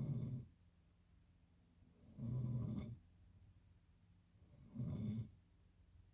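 Snoring in a slow, regular rhythm: one snore already under way at the start, then two more, each about two and a half seconds apart and lasting well under a second, with quiet breathing between.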